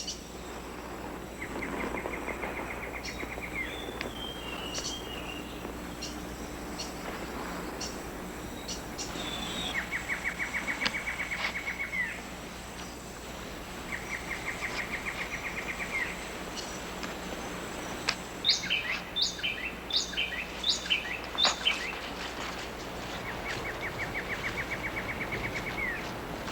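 Rainforest ambience of bird calls: a rapid trilled call repeated four times, each about two seconds long, and a run of five or six sharp, high, falling whistled notes about two-thirds of the way through, over a steady hiss.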